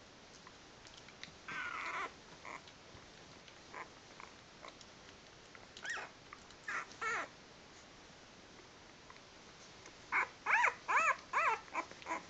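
Week-old puppies whimpering and squeaking: a short cry about a second and a half in, a few brief squeaks around six to seven seconds, then a quick run of high, rising-and-falling squeals near the end.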